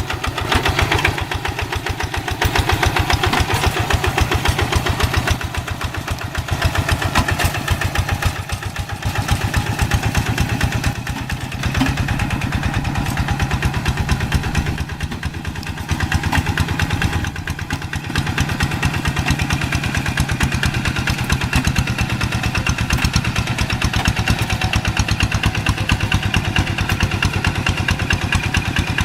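Two-wheel hand tractor's single-cylinder diesel engine running steadily under load with a rapid, even firing beat while it plows deep paddy mud.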